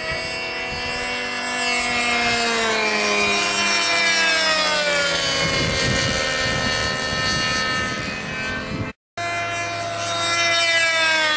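Engines of several radio-controlled model airplanes flying past, their pitches sliding down together as they go by. The sound cuts out briefly about nine seconds in, then the engines come back at a steadier pitch.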